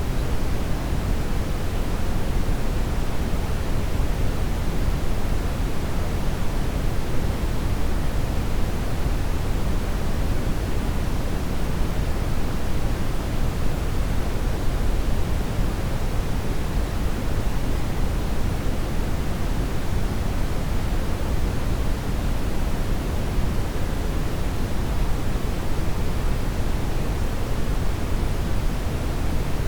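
Steady brown noise: an even, deep hiss, heaviest in the low end and thinning toward the highs, with no changes.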